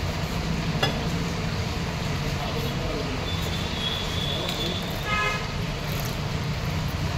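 Steady background traffic rumble, with a sharp knock just under a second in and a brief horn toot about five seconds in.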